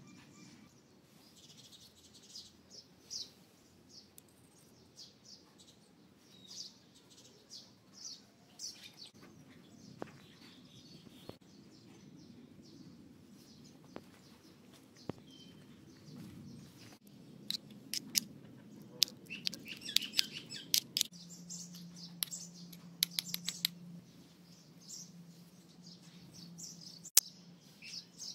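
Small birds chirping repeatedly, with a few sharp light clicks of a small steel spoon against miniature metal bowls, bunched together about two-thirds of the way through.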